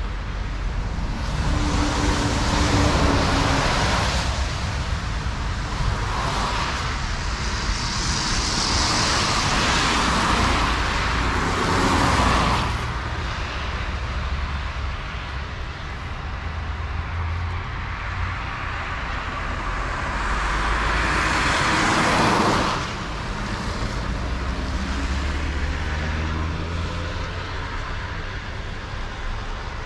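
Road traffic: three vehicles pass close by one after another, each swelling in a rush of noise and then dropping away, over a steady low rumble.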